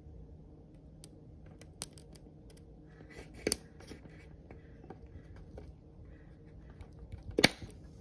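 Pocket-knife clip-point blade paring the hollow tip of a turkey-feather quill: scattered small crisp clicks and snips as the shaft is cut, the loudest about three and a half seconds in and another near the end.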